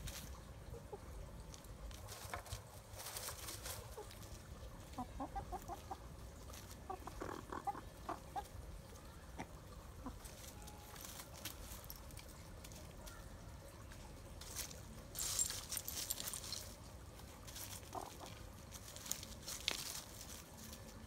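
Chickens clucking softly in short runs of quick notes, with bursts of rustling, the loudest a little past the middle.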